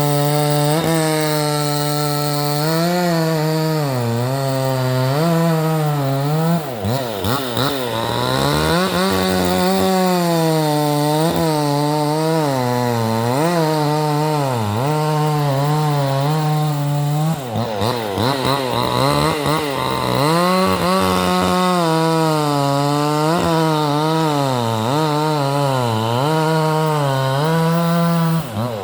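Vevor 62cc two-stroke chainsaw with a 20-inch bar cutting wood at high revs; the engine pitch repeatedly sags and recovers as the chain bites. The throttle is briefly eased off and opened again twice, about seven seconds in and again near eighteen seconds.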